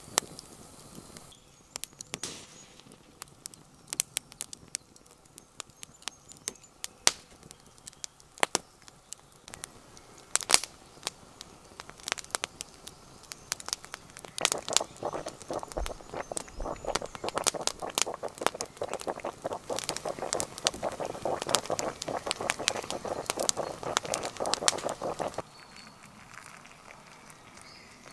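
Wood campfire crackling, with sharp pops scattered throughout and a denser run of crackling from about halfway that drops away near the end.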